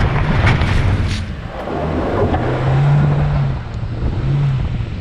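Small hatchback's petrol engine revving hard under load as the car climbs a steep dirt bank off-road. The revs surge twice in the second half.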